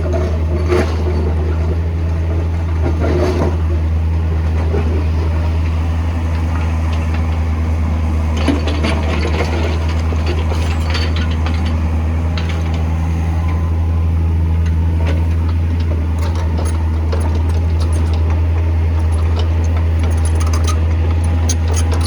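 Backhoe's diesel engine running steadily at a constant low drone, with scattered clanks and rattles from the machine.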